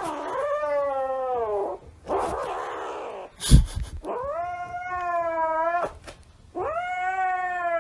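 A cat yowling: three long drawn-out calls, each sagging in pitch at its end. Between the first two there is a breathy rush of noise and then one sharp thump.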